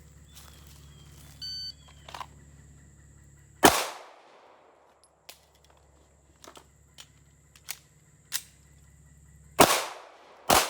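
Shot-timer beep, then a handgun shot about two seconds later. Several seconds of small clicks and knocks follow, typical of a pistol magazine change. Near the end come two more loud handgun shots in quick succession.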